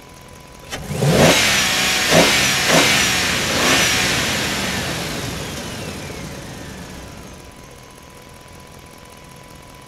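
Engine sound revving in about four quick swells, starting about a second in, then dying away slowly over several seconds.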